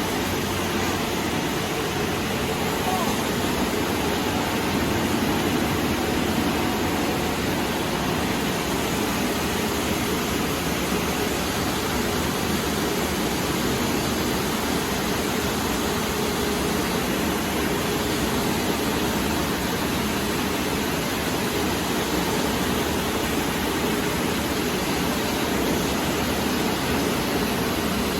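Steady, unbroken machinery noise of a bread crumb production line running.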